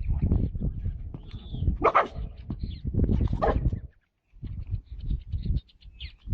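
A dog calling out twice, about two and three and a half seconds in, over a constant low rumble. The sound cuts out briefly after about four seconds.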